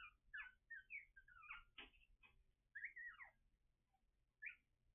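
Very young puppies squeaking: a quick run of short, high-pitched squeaks, many sliding down in pitch. The squeaks break off for about a second near the end, then one last squeak comes.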